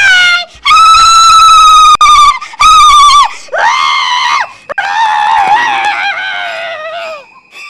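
A woman's loud, high-pitched screaming: a long held shriek of about two seconds, a shorter second shriek, then a long wavering cry that fades near the end.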